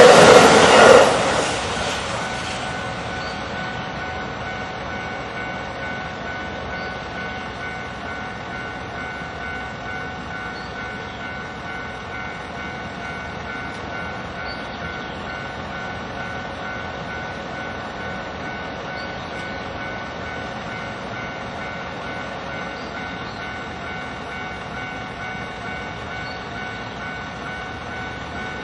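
A Japanese level crossing's electronic warning bell ringing steadily at full volume, which stays unreduced after the barriers are down. A passing train's running noise dies away over the first second or two.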